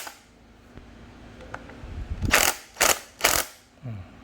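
Impact wrench giving three short bursts, tightening a bolt on a scooter's front fork that is already nearly tight.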